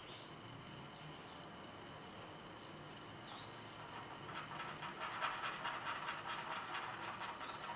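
Metal nail-art tool stirring and scraping neon pigment into gel in a plastic palette well: a fast, continuous run of small scraping clicks that starts a little past halfway.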